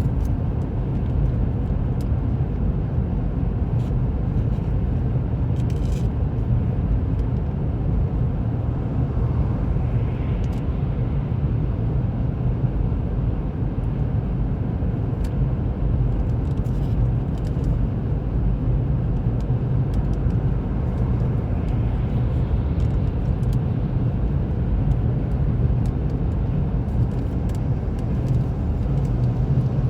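Steady road and engine noise heard inside the cabin of a moving car: an even low drone with no change in speed.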